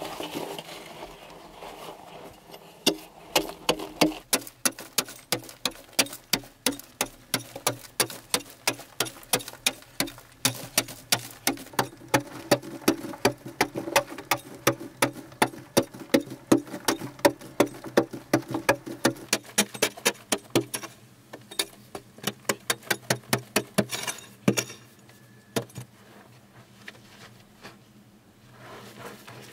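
A long-handled hand digging tool chopping into the packed-earth wall of a tunnel, in a steady run of sharp strikes about two or three a second that stops near the end. A faint low hum lies underneath.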